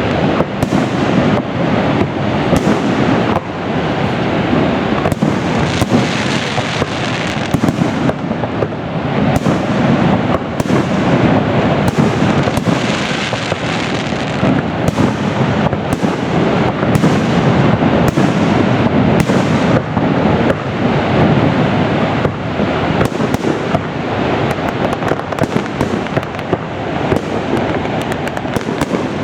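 Fireworks display: a dense, continuous barrage of many overlapping bangs with no pause between them.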